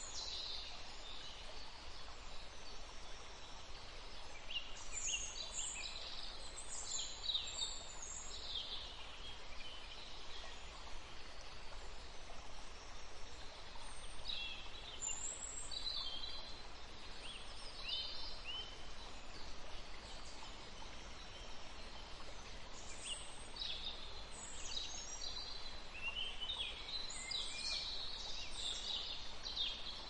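Small cage birds, canaries and finches, chirping in quick high notes that come in three bouts over a steady background hiss.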